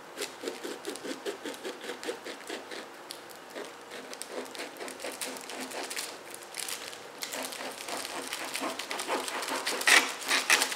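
A kitchen knife sawing through the crust of a ciabatta loaf in quick back-and-forth strokes, with the crust crackling. There are a few louder crackles near the end.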